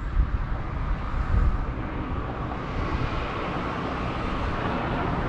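Outdoor background noise: an irregular low rumble, with a steady hiss that builds from about two seconds in.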